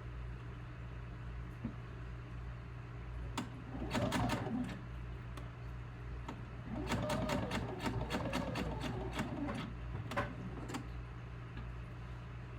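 Sewing machine running a long basting stitch in two bursts, a short one about four seconds in and a longer one of about three seconds from seven seconds in, its needle clicking steadily with each stitch.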